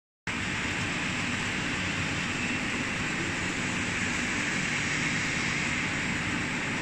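Plastic-chain spiral conveyor running: a steady hiss over a low rumble, with no pauses or knocks.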